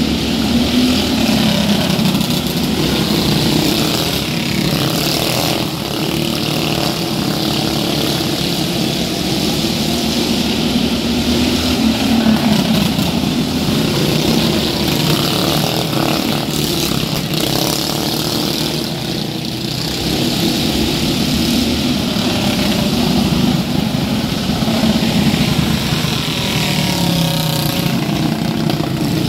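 Engines of several small racing vehicles running on a dirt track, a steady drone that rises and falls in pitch as they accelerate and slow through the turns.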